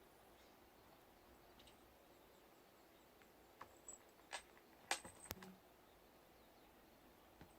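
Near silence with a few faint, sharp clicks about three and a half to five and a half seconds in, the loudest near five seconds, one with a brief very high squeak.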